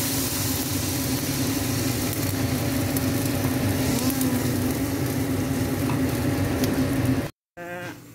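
Water poured into a hot wok of stir-fried chicken sizzling and bubbling hard, with a steady low hum underneath. The sound cuts off abruptly near the end.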